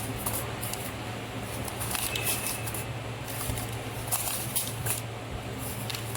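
Automatic sachet packing machine running: a steady low hum with irregular clicks and crackling, rustling snaps from the mechanism and packaging film.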